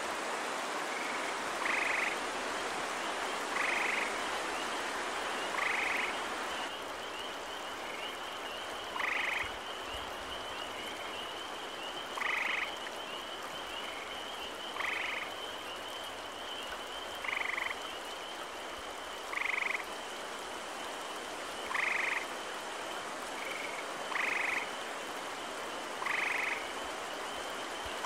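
Gray tree frogs calling, each a short trill repeated about every two seconds, with fainter calls between. About seven seconds in a spring peeper chorus joins as a steady high-pitched ring, over a steady background hiss.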